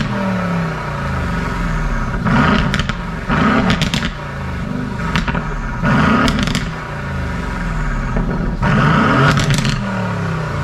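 Aston Martin V8 Vantage's twin-turbo 4.0-litre V8 being blipped repeatedly at a standstill, about four sharp revs that each climb and then fall away, with pops and cracks as the revs drop. It is breathing through an aftermarket sport exhaust with secondary catalyst delete pipes, its valves open in Sport Plus mode.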